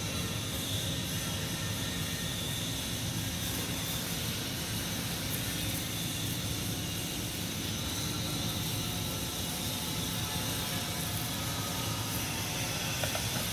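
CO2 MIG welding arc crackling and buzzing steadily, with a continuous hum underneath.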